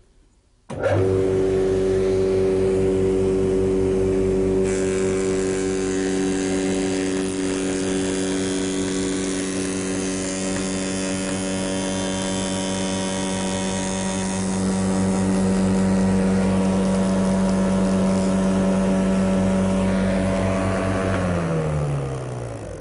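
Spindle moulder's 4-inch cutter block starting up and running at speed with a steady hum. From about five seconds in, the hiss of the spinning cutter cutting through the wooden false fence is added, easing off about ten seconds later. Near the end the machine is switched off and its hum falls in pitch as it runs down.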